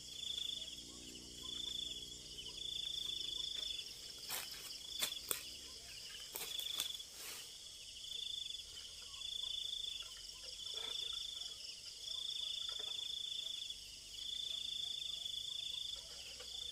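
Night insects trilling steadily at a high pitch, with a louder pulse of the trill about every second. In the middle come a few sharp rustles and knocks as a bamboo pole shakes leafy branches.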